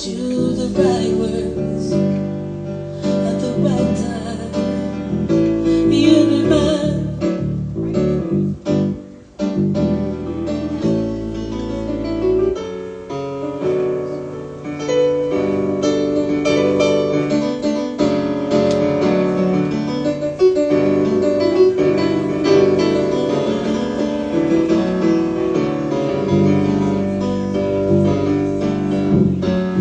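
Live acoustic music: keyboard playing piano chords together with strummed acoustic guitar, with a woman's singing voice over the first several seconds.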